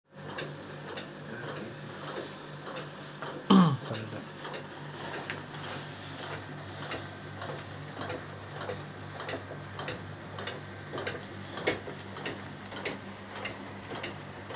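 Belt-driven shaker for liquid culture media running: a steady motor hum with a regular ticking a little under twice a second. About three and a half seconds in, one short loud sound falls in pitch.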